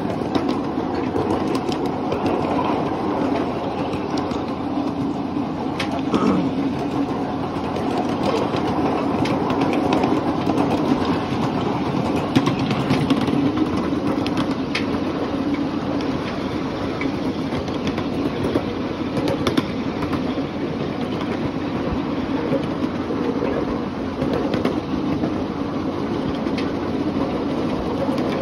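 Miniature ride-on railway train running steadily along its track: a continuous rumble of the wheels on the rails with scattered sharp clicks.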